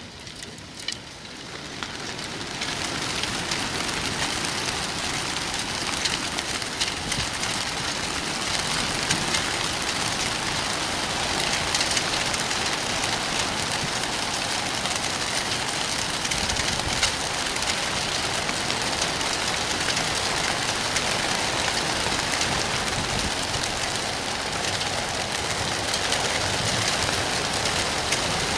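A large flock of racing pigeons bursting out of a transport truck's crates: the clatter of hundreds of wings flapping at once, a dense rain-like noise that swells about two seconds in and keeps up steadily.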